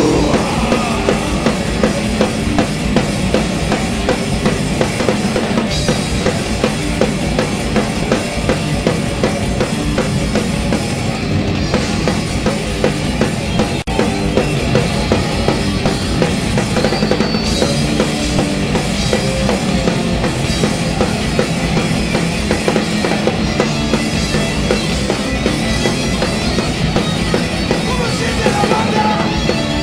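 Rock band playing live and loud without a break, the drum kit to the fore with bass drum and snare.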